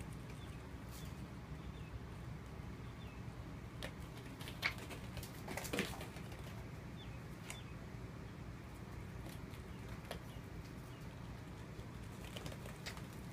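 Kittens scampering and pouncing on foam floor mats: scattered light taps and thumps of small paws, with a cluster of them around the middle, over a steady low room hum.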